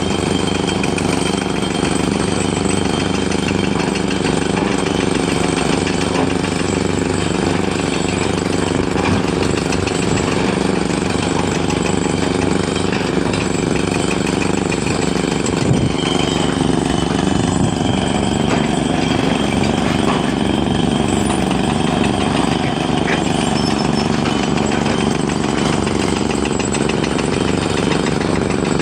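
Heavy machinery's diesel engine running steadily with a rough, rattling note.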